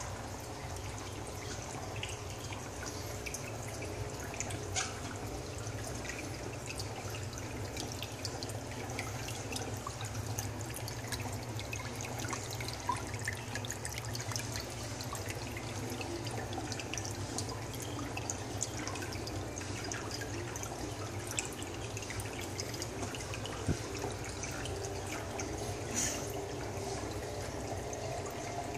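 Aquarium water trickling steadily, with many small scattered drips over a constant low hum.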